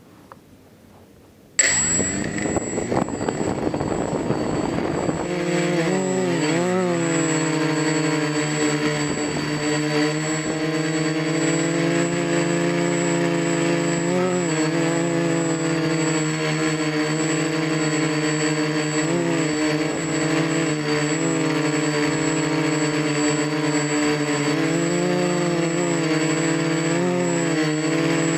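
XAircraft X450 quadcopter's electric motors and propellers starting up abruptly about one and a half seconds in, spooling up over a few seconds, then running in a steady buzzing drone whose pitch wavers briefly every few seconds as the motor speeds adjust in flight.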